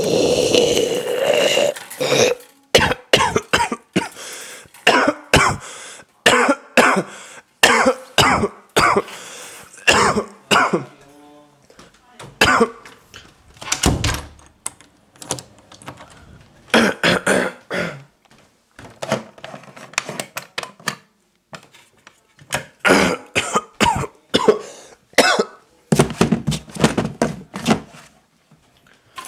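A person coughing over and over, in many short harsh coughs that come in irregular runs with brief pauses between them.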